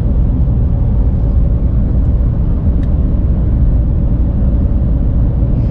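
Car driving, heard as a steady low road and engine rumble.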